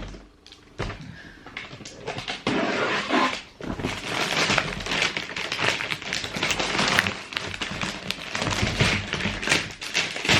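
A cardboard shoe box being handled and opened: a sharp knock at the start, then from about two and a half seconds in a continuous run of rustling, scraping and small clicks of cardboard and paper.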